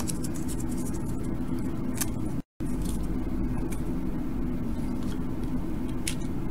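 Steady low background hum with a few light metallic clicks from small LED wire leads being handled and bent. The sound cuts out for a split second about two and a half seconds in.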